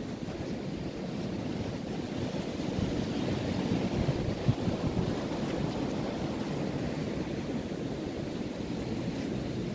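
Steady rush of sea surf on a beach, mixed with wind buffeting the microphone, with one brief bump about halfway through.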